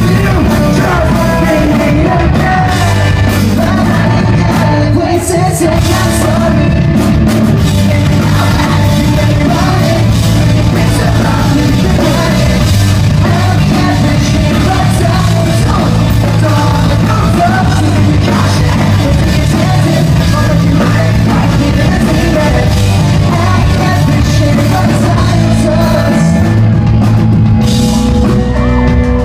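Pop-punk band playing a loud rock song, with singing over drums and band.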